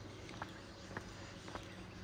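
Footsteps of someone walking on a hard path, short sharp steps at about two a second, over a faint steady low hum.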